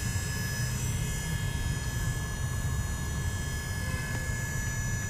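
Electric hydraulic pump of a VW Polo TSI's DSG mechatronic unit running continuously with the ignition on, a steady hum with a thin steady tone above it. It should cut off after a few seconds; its running on is taken as a sign of a drop in oil pressure in the mechatronic.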